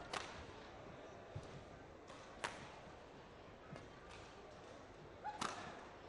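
Badminton rally: racket strings strike the shuttlecock in sharp cracks, three loud hits roughly two and a half seconds apart, with fainter hits and footfalls on the court in between. A low, steady arena-crowd murmur runs underneath.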